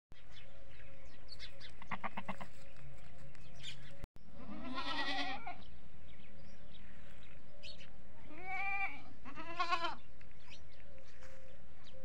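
Desi goats bleating: a quavering call about two seconds in, a longer one around five seconds, and two more in quick succession near the end.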